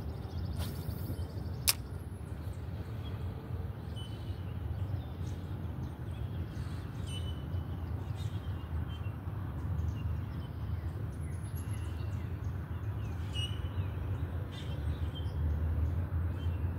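Scattered faint bird chirps over a steady low rumble, with a brief swish and a single sharp click in the first two seconds.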